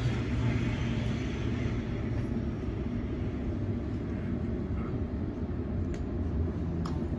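Sydney Trains Waratah A set double-deck electric train running between stations, heard from inside the passenger car: a steady low rumble of the train under way.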